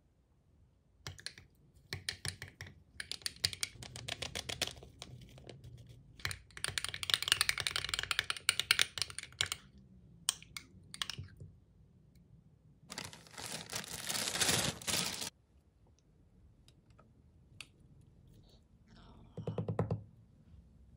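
Metal spoon stirring a thick, creamy sauce in a small glass, in spells of rapid clicking and scraping against the glass. Near the end there is a brief, lower scrape.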